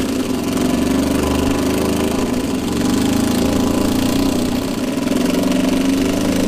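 Ryobi 18V cordless impact driver hammering steadily as it runs nuts down onto bolts through a metal backing plate, with a slight dip about two seconds in as it moves from nut to nut.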